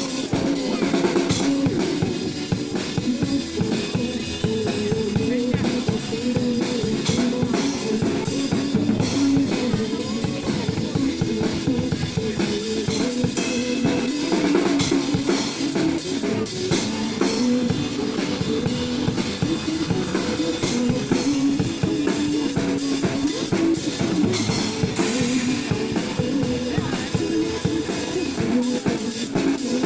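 Mandopop song playing, with a steady drum-kit beat under the melody.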